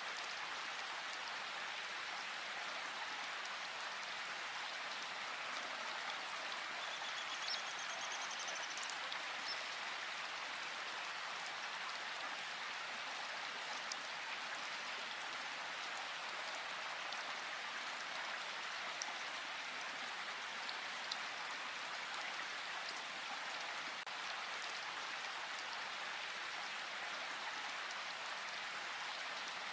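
Steady rushing of river water, with a short high bird trill about seven seconds in.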